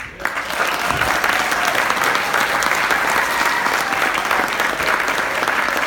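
Audience applauding, many hands clapping at once. It starts suddenly as a speech ends and keeps up steadily.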